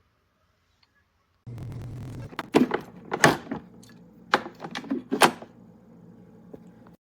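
A steady low hum that starts suddenly, with two quick clusters of sharp knocks and clunks over it, then cuts off abruptly.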